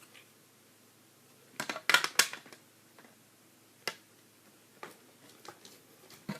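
Hard plastic toy parts of a castle playset being handled and fitted together: a quick cluster of clicks and rattles about two seconds in, then a single click about a second and a half later and a few faint ticks.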